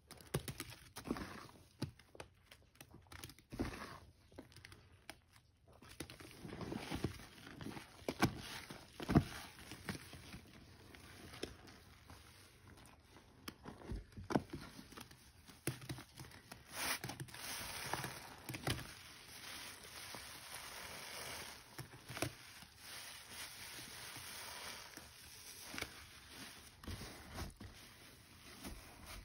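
Wet, soapy sponge being squeezed by hand: irregular squelches and crackling of foam, with stretches of water streaming out.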